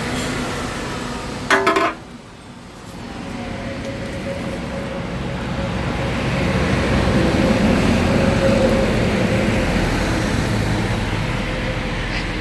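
Double-head aluminium cutting saw: a sharp clunk about one and a half seconds in, a brief lull, then the saw's motor hum building up and running steadily.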